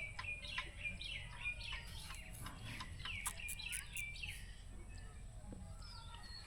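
Faint chirping of small birds: many short calls, several overlapping.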